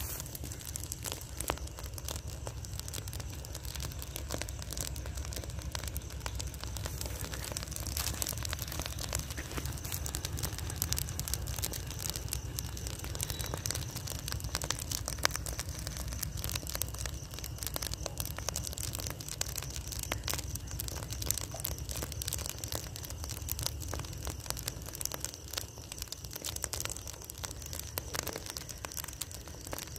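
Pile of harvested rice straw burning fiercely, with a dense, continuous crackle over a steady low rumble.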